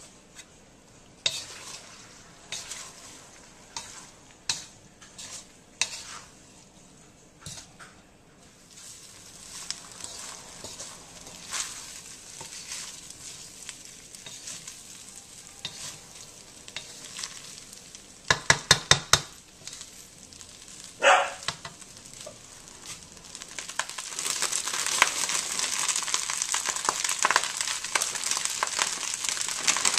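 Wooden spatula scraping and knocking against a steel wok while fried rice is stir-fried, with a quick run of about six loud knocks a little past halfway. Near the end a loud, steady sizzle builds up with diced carrots and peas in the hot wok.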